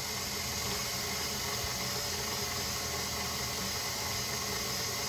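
KitchenAid stand mixer running at a steady hum, its beater whipping honey into freshly made butter in the steel bowl.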